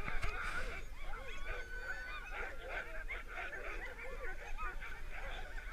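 A crowd of sled dogs yelping and howling together: many short, overlapping cries that rise and fall in pitch, the excited clamour of dog teams waiting to run.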